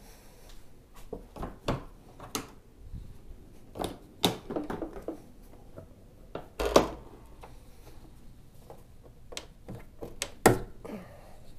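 Irregular knocks, clicks and clunks of objects being handled, about a dozen over several seconds, with the two loudest about seven and ten and a half seconds in.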